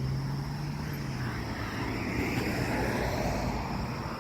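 A vehicle passing by: a low engine hum that fades out about a second in, then a rush of noise that swells to a peak midway and eases off.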